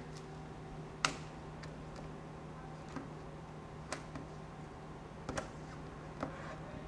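Scattered light clicks and crinkles of hands pressing and moulding a butyl-based stretchy tape, with its plastic release film, around a pipe through an airtight membrane. The sharpest click comes about a second in, and a steady low hum runs underneath.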